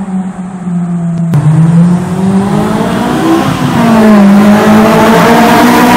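Honda S2000 four-cylinder engine breathing through a J's Racing FX-PRO 70RS full-titanium exhaust, under full-throttle acceleration inside a road tunnel. The note climbs, drops briefly just past the middle as at a gear change, then climbs again.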